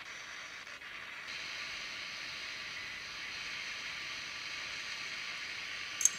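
Static hiss from a Digitech AR1458 pocket radio modified for shortwave, with no station tuned. About a second in the hiss steps up and grows brighter, and a single sharp click comes near the end.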